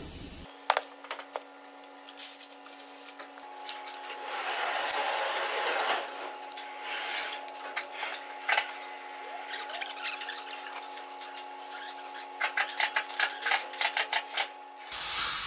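Ratchet wrench clicking as the oil pan bolts are tightened, with scattered metal clinks and scraping, and a quick run of ratchet clicks near the end.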